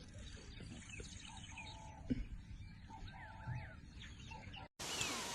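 Birds calling: short chirps that glide up and down, with a couple of held, even-pitched calls, and a sharp knock about two seconds in. Near the end the sound drops out for a moment and a steady hiss with faint chirps takes over.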